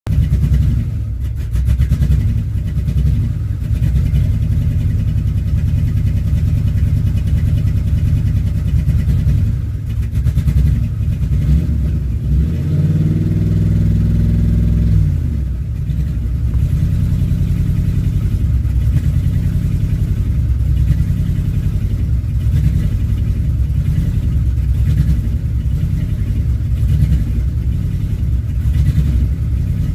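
2005 Dodge Ram 1500's 5.7-litre Hemi V8 idling roughly, with an uneven pulsing to its running. About halfway through it is briefly revved, rising and falling back to idle.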